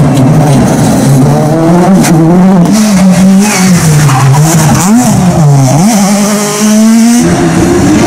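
Rally cars driven hard, their engines revving up and down through gear changes and lifts, with quick pitch swings about five seconds in. The sound changes abruptly near the end as it cuts to another car.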